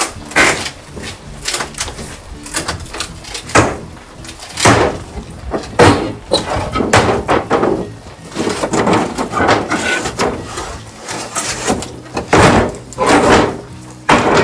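Old wooden wall boards being pried and knocked loose with a crowbar: irregular knocks, bangs and cracking of wood.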